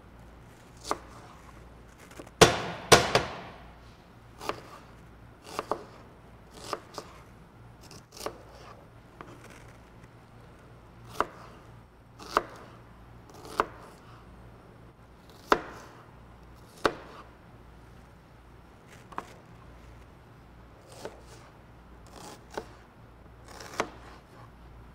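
Knife chopping on a cutting board: slow, irregular single chops, mostly a second or more apart, with a quick flurry of louder chops about two and a half seconds in.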